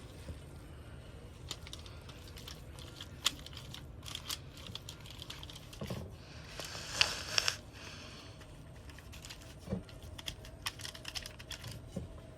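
Scattered light clicks and taps of hands handling food and utensils during meatloaf preparation, with a brief crinkling rustle about seven seconds in.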